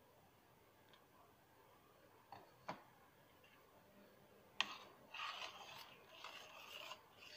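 A spatula stirring thin besan batter in a kadhai: a sharp knock about four and a half seconds in, then irregular scraping and rubbing against the pan. Before that it is nearly quiet apart from two light knocks.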